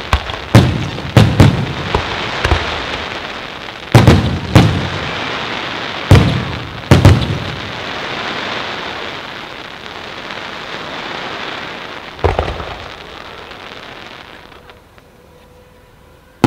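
Aerial firework shells bursting: about ten sharp bangs, mostly in the first seven seconds with one more about twelve seconds in, over a steady hiss that fades away near the end.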